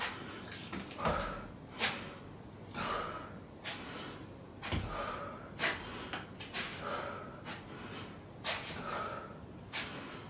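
A woman breathing hard and audibly under exertion, short sharp breaths out and in repeating about once a second.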